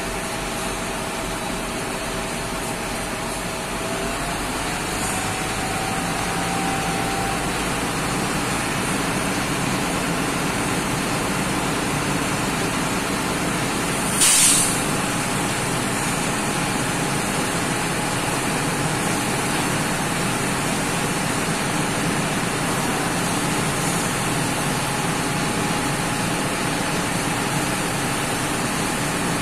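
Truck engine running steadily, driving the hydraulic pump while the dump trailer's telescopic cylinder lifts the tipper body, with its pitch rising slightly about four seconds in. A short, sharp hiss of air about halfway through.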